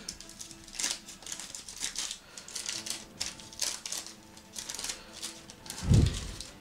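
Waxed-paper wrapper of a 1986 Topps wax pack crinkling and tearing as it is peeled open by hand, in a run of short crackles. A low thump near the end.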